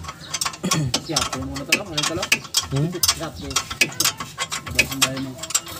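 Ratchet wrench clicking in short, irregular runs as a bolt behind the brake caliper of a Hyundai Accent's front hub is turned, with a low voice murmuring now and then.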